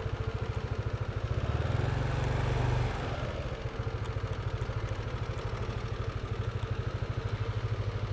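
Motorbike engine running at low riding speed with an even low pulsing beat, a little louder for the first three seconds, then dropping back slightly.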